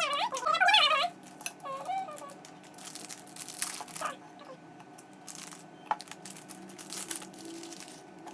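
A brief voice-like sound at the start, then irregular crinkling and rustling of handled snack packaging. Small hard candies are scattered onto a cup of shaved ice, making light clicks and ticks.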